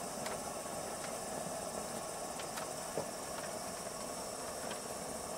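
Coleman NorthStar dual-fuel pressure lantern burning with a steady hiss from its pressurized burner, crickets chirping in the background. A faint click about three seconds in.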